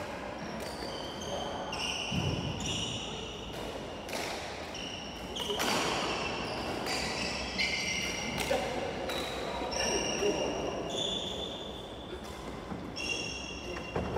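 Sports shoes squeaking again and again on a wooden hall floor as badminton players move about, short high squeaks coming every second or so. A few sharp knocks are mixed in.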